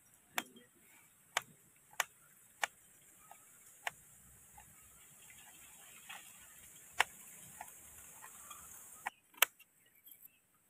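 Wood fire burning under a large metal pot, crackling with sharp irregular pops and snaps, the loudest near the end.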